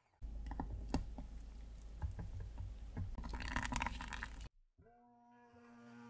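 Immersion blender running in a liquid raspberry and cream mousse mixture in a glass jug: a low churning rumble with liquid slurping and clicks, cut off suddenly about four and a half seconds in. Soft background music follows.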